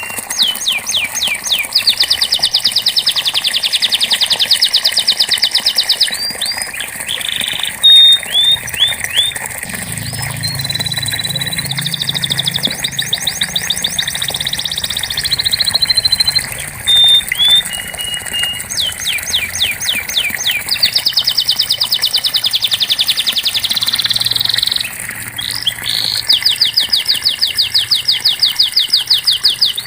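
Domestic canary singing: long rolled trills of very fast repeated sweeping notes, each held for several seconds, broken by short chirps and whistled notes.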